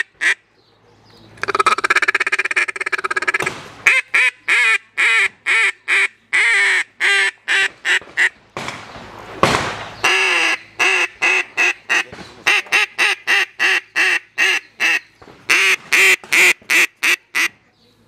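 Hand-held American-style duck call blown in long runs of short, sharp quacks, several a second, with one longer unbroken stretch near the start.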